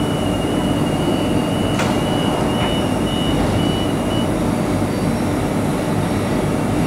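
Queensland Rail electric suburban train standing at the platform, its onboard equipment running with a steady hum and a high steady tone that stops about four seconds in. A sharp click comes just before the two-second mark.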